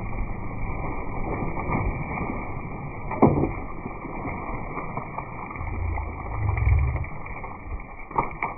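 Steady low rumble on a small fishing boat, with no speech. There is a sharp knock about three seconds in and a heavier low surge near the seven-second mark.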